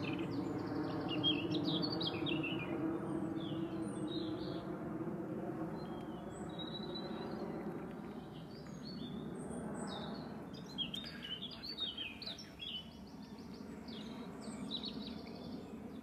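Songbirds singing, a robin among them, in short high phrases near the start and again about two-thirds through, over the steady drone of an aeroplane passing overhead that slowly fades away.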